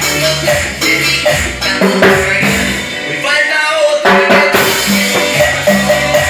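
Timbales struck with sticks along to a recorded cumbia track with a steady bass line; the bass drops out for about a second in the middle while the drum strikes carry on.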